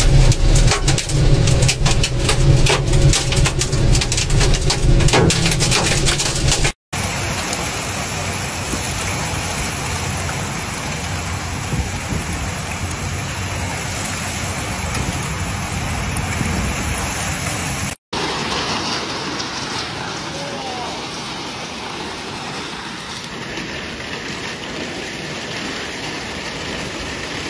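Violent storm of wind-driven rain and hail: first a dense, rapid pelting of hits on a cab windscreen over a heavy low rumble, then, after a cut, a steady rush of heavy downpour that runs on, slightly softer, through a second cut.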